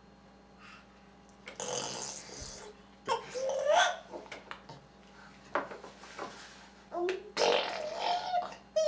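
An 8½-month-old baby blowing raspberries, buzzing his lips to make farting noises, in three main bursts. Some of the bursts are mixed with his voice.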